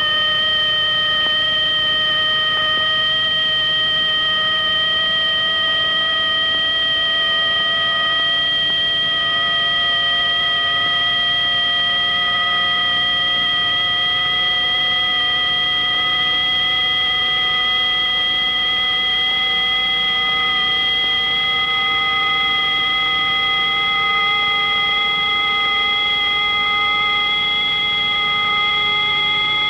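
Electronic sine-wave tones held high and steady, several at once, with the upper ones creeping slowly upward in pitch while one lower tone drifts down, over a faint hiss.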